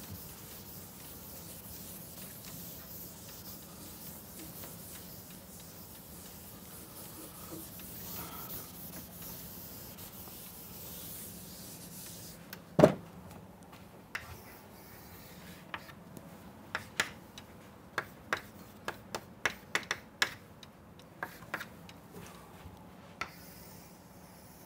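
Felt chalkboard duster rubbing across a blackboard for about twelve seconds, then one sharp knock, followed by a run of short chalk taps and scrapes as chalk draws lines on the board.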